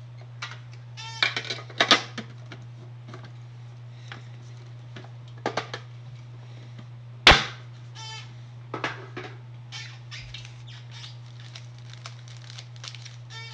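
Handling of a Pokémon card tin and foil booster packs: scattered clicks, taps and short rustles, with one loud sharp knock about seven seconds in, over a steady low hum.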